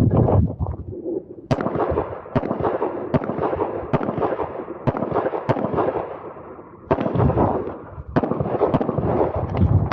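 Handgun shots being fired in quick, irregular succession while a shooter works through an IPSC course of fire, roughly a dozen sharp cracks over a steady rushing noise.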